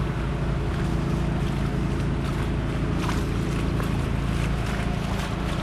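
A steady low engine hum from a running vehicle, with light rain ticking on an umbrella overhead.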